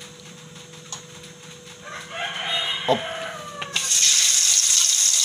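A rooster crows in the background about two seconds in. Near the end, spice paste dropped into hot oil in a wok starts sizzling loudly.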